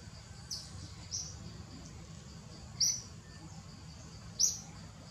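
Forest ambience: a small bird gives short, high chirps, about four of them one to two seconds apart, over a faint steady insect hum.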